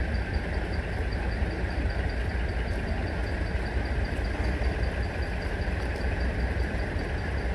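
Large diesel truck engines idling in a steady low rumble, with a faint, even high ticking on top.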